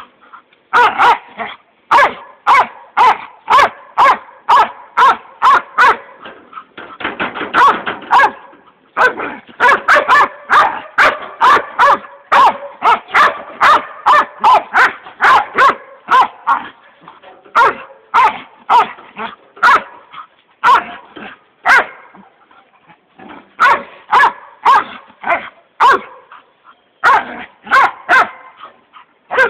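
Dogs barking excitedly in rapid, repeated barks, about two a second, with a few brief breaks, as they go wild over a wheelbarrow being pulled around.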